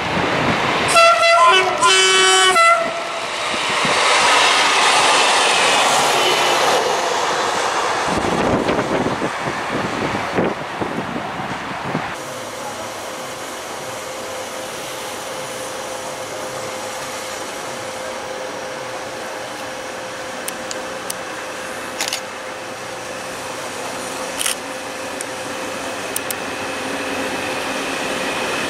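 Two short horn blasts from an approaching passenger train, the second on a lower note, then the train running past. After that a quieter track-side scene with a steady hum, and the sound of a CFL Z2 electric multiple unit approaching starting to rise near the end.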